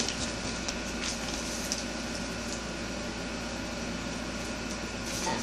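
Steady room tone: a constant low hum and hiss with a few faint light ticks or rustles in the first couple of seconds.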